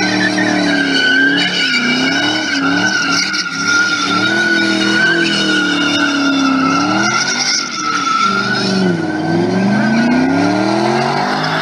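Muscle car spinning its tyres: the engine revs rise and fall over and over beneath a steady, high tyre squeal.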